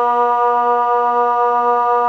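Kockum Sonics DELTA 6 electronic siren sounding the water alarm (Wasseralarm), a steady, low continuous tone held without any rise or fall.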